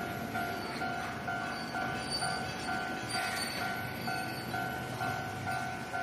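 Japanese railway level-crossing warning bell ringing in an even electronic ding-ding, about two strokes a second. Underneath is the running noise of an Enoden tram approaching on the street track.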